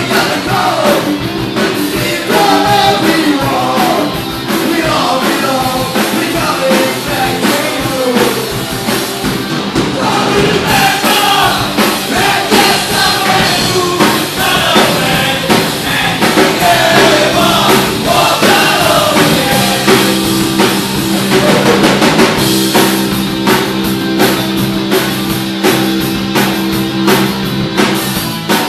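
Live punk rock band playing, with drum kit and a sung vocal line over the guitars. About two-thirds of the way through the singing stops and steady held chords ring on under the drums.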